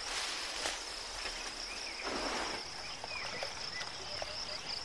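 Steady chorus of insects trilling high, with water splashing twice as an elephant sprays itself at bath time, once at the start and again about two seconds in. A few faint bird chirps sit under the trill.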